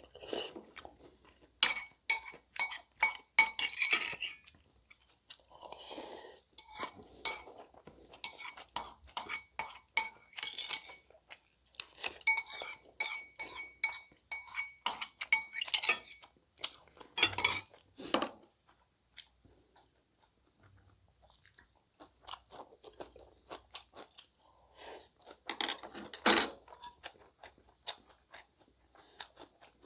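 Eating utensils clinking and scraping against a bowl in quick runs of ringing clicks, between stretches of close-miked chewing.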